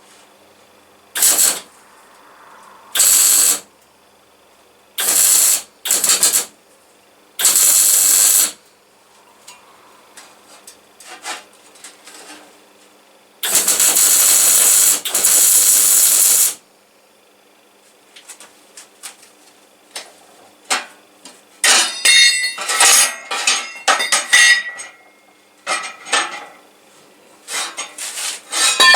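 Welder laying short tack welds on sheet metal: six separate bursts of hiss, each under a second to about three seconds long, the longest near the middle. In the last third, a run of sharp metallic clinks and taps.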